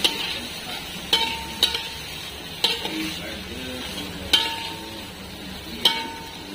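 Whole prawns sizzling in a metal pan while a slotted metal spatula tosses them. The spatula clanks and scrapes against the pan about six times, and some strikes leave a short metallic ring.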